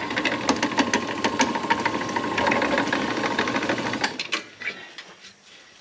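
Drill press rattling and clicking rapidly with a faint steady whine, dying away about four seconds in, as the machine winds down after cutting a recess into a steel hub adapter.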